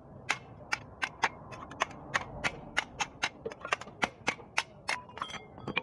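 Hammer striking a flat steel blank laid over an anvil block: rapid, sharp metallic blows, about three or four a second and unevenly spaced, as the cut blank is shaped into a curved blade.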